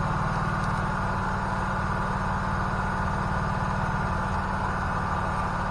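Portable generator engine running steadily with an even low hum.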